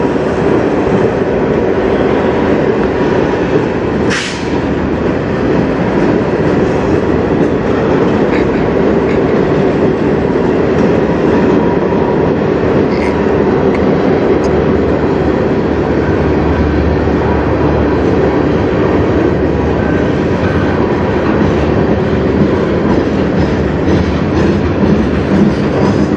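Freight train cars rolling past close by: a steady, loud rumble and rattle of steel wheels on rail, with a brief sharp noise about four seconds in and wheel clacks over rail joints near the end.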